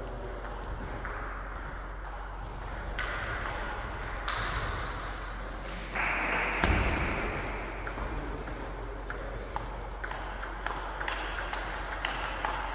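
Table tennis ball clicking off the bats and the table during rallies, in irregular sharp ticks. A sudden louder burst of noise about halfway through fades away over a couple of seconds.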